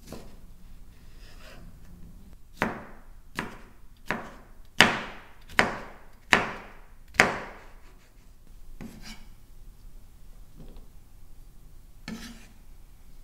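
Knife chopping on a wooden cutting board: seven sharp strokes a little under a second apart, each trailing off briefly, then two fainter ones. Quieter rubbing and handling sounds come between the strokes.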